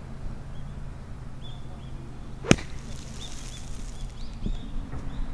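Single sharp crack of a 52-degree wedge striking a golf ball, about two and a half seconds in, followed by a brief hiss. Small birds chirp repeatedly throughout.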